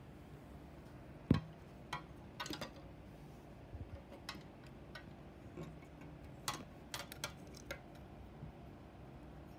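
Plastic Lego bricks clicking and tapping as a brick-built dinosaur model is handled and its jointed legs are moved. One louder knock comes a little over a second in, as the model is set down on a hard tabletop, followed by scattered light clicks.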